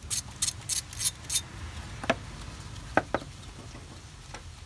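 Light metallic clicks of a hand wrench being worked on the water pump bolts: a quick run of short high clicks, about three a second, in the first second and a half, then a few sharper single clicks.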